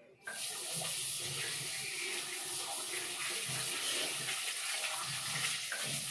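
Kitchen tap turned on about a quarter second in, water running steadily into the sink for hand washing.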